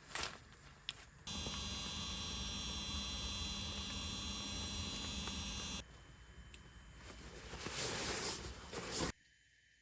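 A steady electrical hum with a buzz that switches on abruptly about a second in and cuts off abruptly a few seconds later, followed by a swell of noise.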